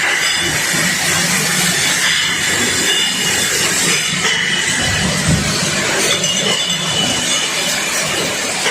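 Rotary bottle washing machine running: a steady mechanical clatter with a hiss.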